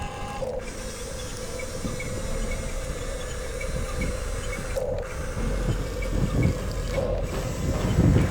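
Small electric gear motors of a radio-controlled toy excavator whirring and grinding steadily through their plastic gearboxes, with a continuous hum.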